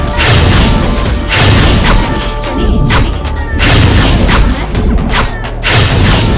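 Loud music with heavy booming bass and sharp crashing hits that recur every half second to a second.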